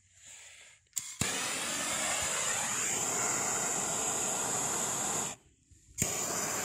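Handheld gas blowtorch: a click about a second in, then the flame hissing steadily for about four seconds. It cuts off, and after a short gap comes another click and the hiss starts again near the end.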